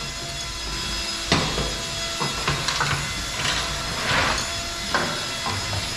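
A new motorcycle drive chain being handled and worked with tools to cut it to length: a scattered series of sharp clinks and knocks, with a short rasping scrape about four seconds in.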